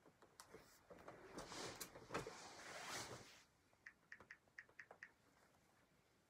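Faint rustle of handling and clothing as an iPad is picked up, followed about four seconds in by a quick run of light finger taps on its screen.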